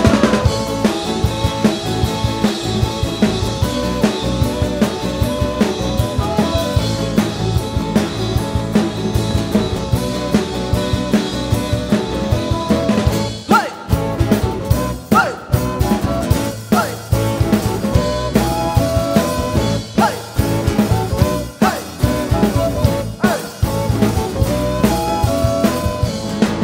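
Instrumental break of a live band playing Balinese pop-fusion, with no singing: a drum kit keeps a steady beat under the melodic instruments. About halfway through, the arrangement changes, with a quick rising sweep roughly every second and a half.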